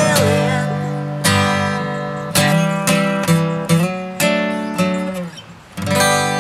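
Acoustic guitar strummed in a series of chords, with the tail of a sung note wavering and fading in the first second. After a brief lull, one last chord is struck near the end and left ringing.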